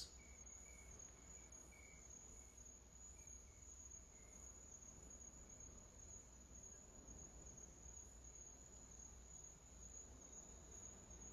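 Near silence: room tone with a faint, steady high-pitched whine and a low hum.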